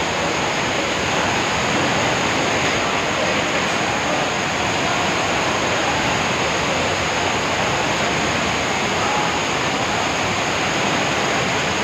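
Waterfall in flood pouring down, with floodwater rushing across the paved floor: a loud, steady rush of water throughout.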